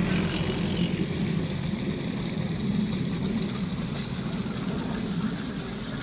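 Tubewell pump engine running steadily, with water gushing from its outlet pipe; the sound eases slightly toward the end.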